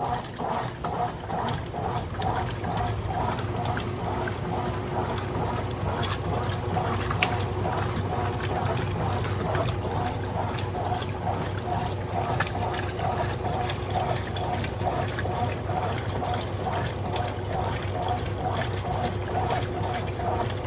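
Brastemp Clean washing machine running with water inside. There is a steady low hum and water sloshing in an even rhythm, about twice a second.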